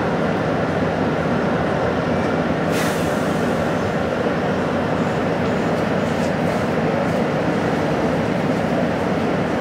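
Steady road-traffic noise from a queue of buses and cars idling and creeping along, with a short hiss about three seconds in.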